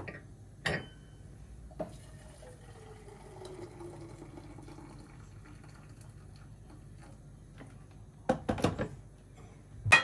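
Electric kettle lifted off its base with a click, then water running into it for a few seconds. Near the end, several knocks as it is set back down, and a sharp click at the very end.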